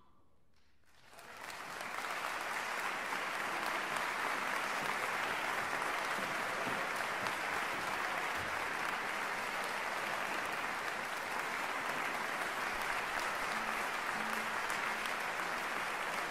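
Large audience applauding in a concert hall. After a second of near quiet, the applause swells up quickly and then holds steady.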